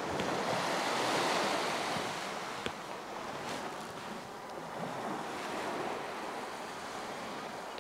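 Small sea waves breaking and washing up a sandy beach: a steady surf wash that swells about a second in and then slowly eases off.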